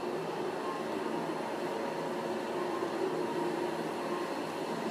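Steady room background noise: an even hiss with a low mechanical hum and a few faint steady tones, unchanging throughout.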